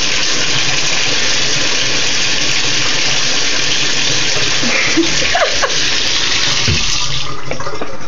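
Bathtub tap running, water pouring steadily into the tub; the hiss dulls about seven seconds in.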